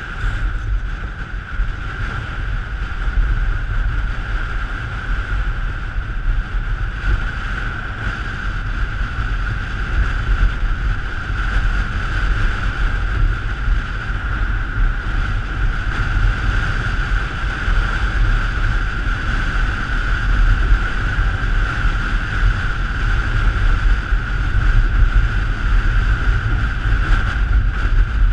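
Wind buffeting the microphone, a steady low rumble, with a constant high hum running through it that grows slowly louder toward the end.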